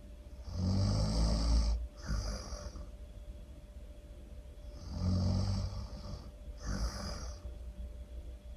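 A person snoring really loud: two snore cycles, each a long low snore followed by a shorter breathy one, about four seconds apart.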